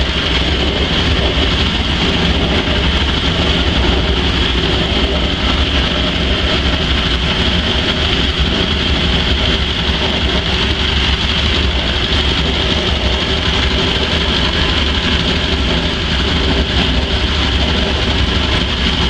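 Coffee bean washing machine running steadily while beans are fed through its drum: an even, loud motor drone with a constant hiss over it.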